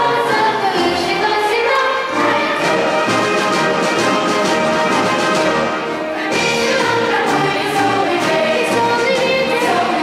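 A large children's choir singing with an orchestra. The music thins briefly about six seconds in, then comes back in full.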